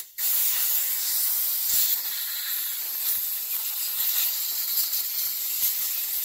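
Compressed-air blow gun hissing as it blows off a Holley carburettor adapter plate with a freshly drilled and tapped vacuum port: a brief blast, then one long steady blast.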